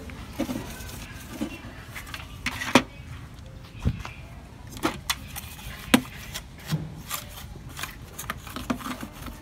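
Plastic scanner parts and the metal chassis of an HP Color LaserJet Pro M177fw printer clicking and knocking as they are handled and set down on a wooden bench. About a dozen short, sharp clicks come at irregular intervals.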